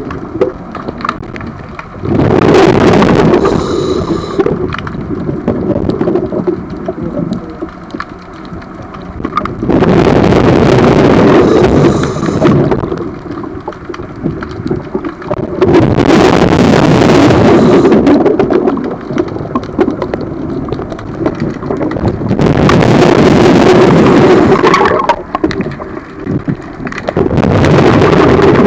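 Scuba diver's exhaled breath bubbling out of the regulator in long loud bursts about every six seconds, five times, with quieter stretches of breathing between them, heard through the water.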